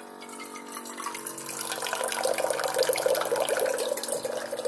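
Small rechargeable electric water-jug pump running with a steady whir, pumping water from a 5-gallon jug that pours into a cup; the splashing of the filling cup grows louder over the first couple of seconds.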